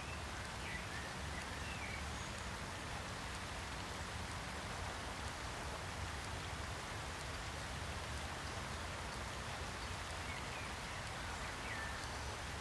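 Fountain water falling and splashing steadily, a constant even hiss.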